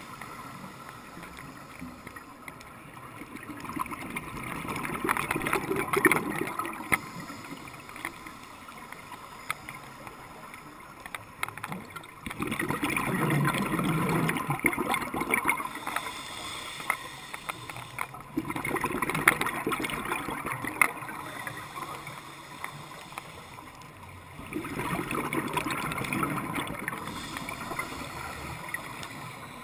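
Scuba diver breathing through a regulator underwater: four bursts of exhaled bubbles, roughly every six seconds, with quieter stretches between.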